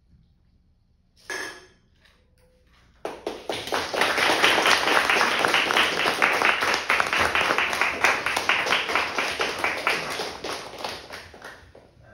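A small audience applauding: clapping starts suddenly about three seconds in, holds for several seconds and tapers off near the end. A brief short sound comes about a second in.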